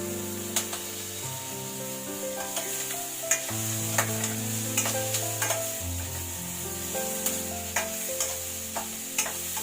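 Chicken sizzling in hot oil as it is stir-fried, with the spatula clicking against the pan a dozen or so times. Background music with held chords plays underneath.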